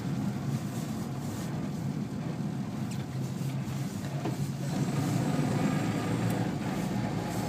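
Car engine and road noise heard from inside the moving car's cabin: a steady low hum that gets a little louder about five seconds in.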